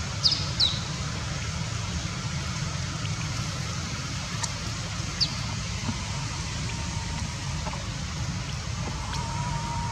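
Outdoor background noise: a steady low rumble, with two short, high, falling chirps near the start and another about five seconds in.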